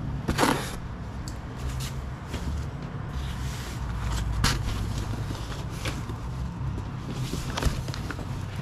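Rustling and scattered soft knocks of fabric and boxes being handled and moved, over a steady low rumble.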